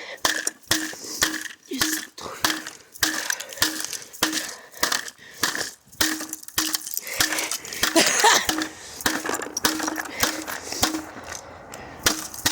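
Repeated hard blows smashing and crunching the plastic parts of a Dyson vacuum cleaner, two or three hits a second, with a louder crash about eight seconds in.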